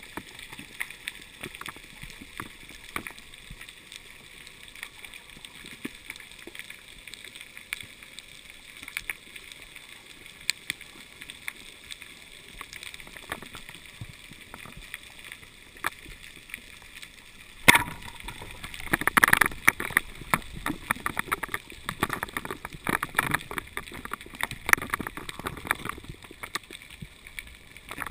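Underwater sound on a rocky reef: a faint background crackle of scattered clicks. About 18 seconds in there is a sharp knock, followed by a busier stretch of louder clicks and knocks.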